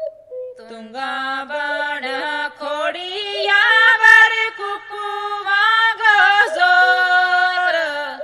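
Women singing a Gojri folk song (lokgeet) unaccompanied, in long held notes that bend and ornament in pitch.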